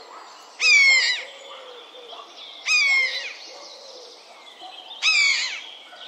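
Common buzzard giving its plaintive call three times, each call about half a second long and falling in pitch.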